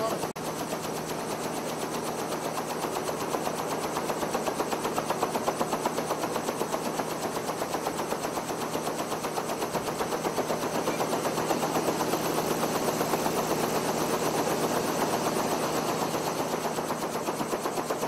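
Light aircraft's engine and blades running close by, loud and steady with a rapid even chopping pulse.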